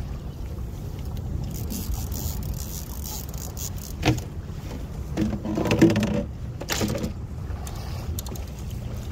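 Steady wind and water noise around a small open boat, with a single sharp knock about four seconds in and a short spell of louder clattering around the sixth second, as the rod and reel are handled.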